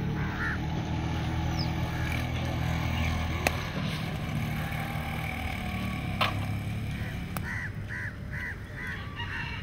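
Outdoor ambience: a steady low rumble with a few sharp clicks, then, about eight seconds in, a quick run of short repeated bird calls, about three a second.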